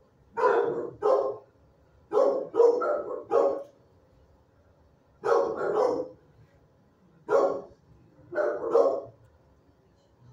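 Dog barking in short bouts of one to three barks, about ten barks in all, with pauses of a second or two between bouts.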